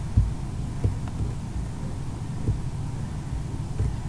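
A steady low hum with soft, irregular low thumps every half second or so, and nothing higher-pitched above it.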